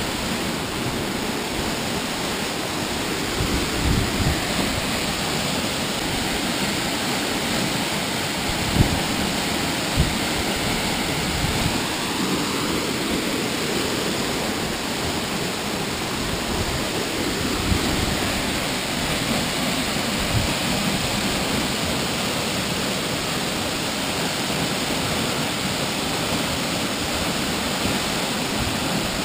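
Steady rushing roar of a tall waterfall, about 150 feet high, plunging into a pool, with a few brief low thumps about 9 and 10 seconds in.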